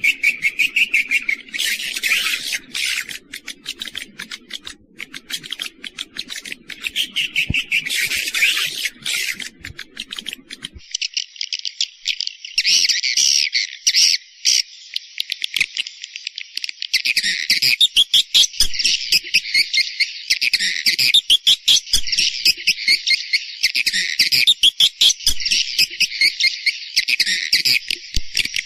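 Recorded swiftlet lure call track for the outside of a swiftlet house: rapid, dense high chirping and twittering repeated without pause. About eleven seconds in the track changes, a low background hum drops out and the chirping becomes denser and more even.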